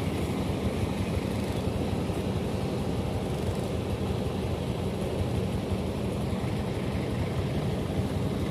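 Bus engine running with a steady low rumble.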